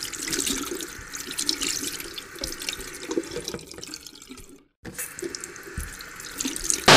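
Water running and splashing in an irregular stream, cutting out completely for a moment a little before the five-second mark, then resuming.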